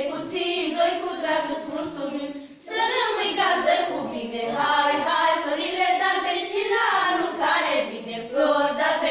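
A group of teenage girls singing a traditional Romanian colindă (Christmas carol) together, with a short break for breath about two and a half seconds in.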